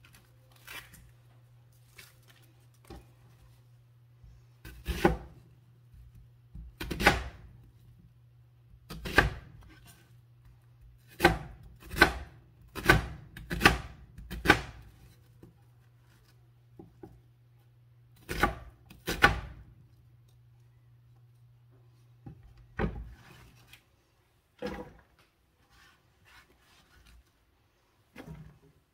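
Chef's knife chopping an onion on a plastic cutting board: a series of sharp, separate knife strikes, mostly about a second apart, with a few lighter taps near the end. A faint steady low hum runs underneath and stops about three-quarters of the way through.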